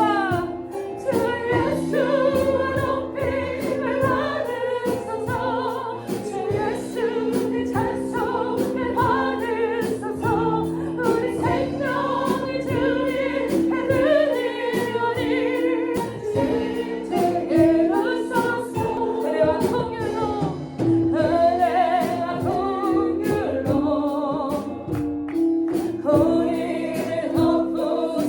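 Group of voices singing a worship song in chorus over instrumental accompaniment with a steady percussive beat.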